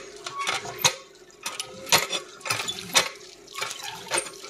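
Old water pump being worked, its metal mechanism clanking in sharp knocks about once a second over a faint steady hum.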